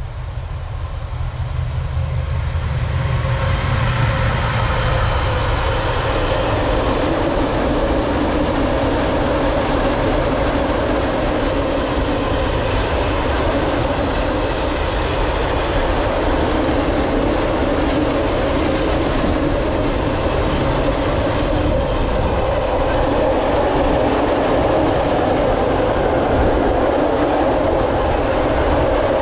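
Freight train passing close by. The sound of the approaching electric locomotive swells over the first few seconds, then a long string of open freight wagons rolls past with a steady rumble and wheel clatter on the rails.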